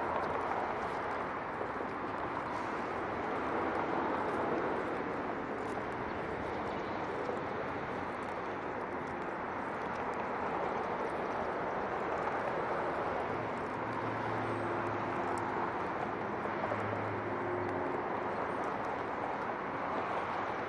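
Outdoor street ambience: a steady wash of traffic noise, with a low engine hum from a vehicle between about fourteen and eighteen seconds in.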